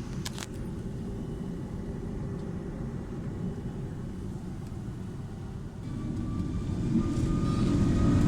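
Airbus A330-300 cabin rumble while the airliner rolls on the ground, with a couple of sharp clicks just after the start. About six seconds in, the jet engines spool up: the rumble grows steadily louder and a whine climbs slightly in pitch, as thrust is applied for takeoff.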